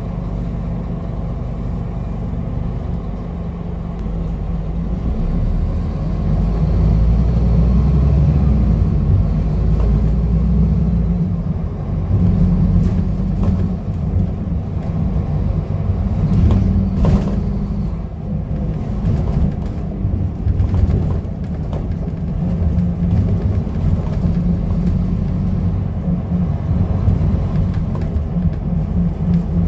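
Scania N230UD double-decker bus's five-cylinder diesel engine heard from the upper deck while driving, a heavy low rumble whose note rises and falls with the revs and gear changes. A few knocks from the body come through just past the middle.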